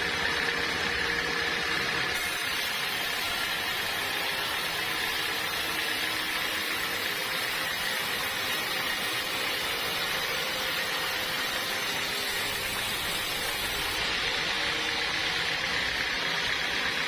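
Sawmill machinery running steadily with a continuous whine; a harsher high hiss comes in about two seconds in and drops away near the end.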